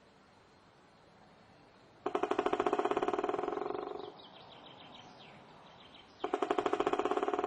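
Woodpecker drumming on wood: two rapid rolls of about two seconds each, one about two seconds in and one near the end, over a low steady city background hum. A few short bird chirps come between the rolls.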